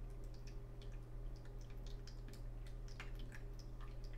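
Room background: a steady low hum with faint, irregular high ticks scattered through it, a few a second.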